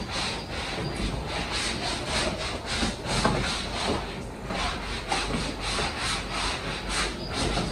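A cloth wiped over a black leather sofa in quick repeated rubbing strokes, about three a second.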